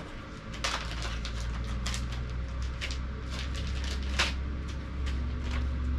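Paper rustling and crackling as a printed owner's manual is opened and its pages are leafed through, in quick irregular bursts, over a low steady hum.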